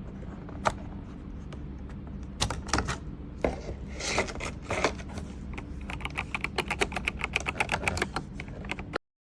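Keys of an Aigo Darkflash GD100 mechanical keyboard being typed on. A few scattered keystrokes come first, then fast typing of about seven keys a second over the last few seconds, cutting off suddenly near the end.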